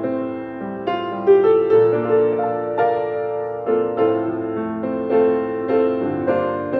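Grand piano played solo: chords and melody notes ringing on into one another, with a new note or chord struck about every half second.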